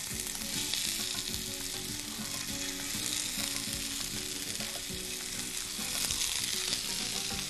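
Oil sizzling steadily in a frying pan as skewered steamed chicken kofta balls are laid in to brown.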